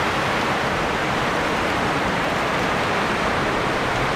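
Heavy rain falling: a loud, steady, even hiss with no letup.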